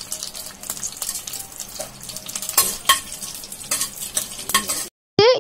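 Mustard seeds, urad dal and chana dal frying in hot oil in a pan, sizzling with scattered crackling clicks as a metal spoon stirs them. The sizzle cuts off suddenly near the end.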